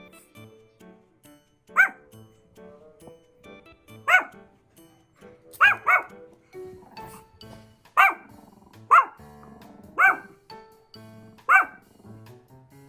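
Chihuahua barking in alert as a watchdog: about eight short, sharp barks spaced a second or two apart, two of them in quick succession.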